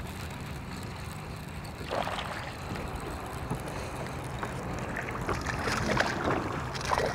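Lake water lapping and splashing at a bass boat over a steady low hum, with short splashes about two seconds in and again near the end as a small hooked largemouth bass is reeled to the boat.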